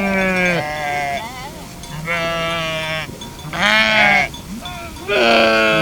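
A flock of sheep bleating: four loud, drawn-out bleats about a second long each, with fainter bleats between them.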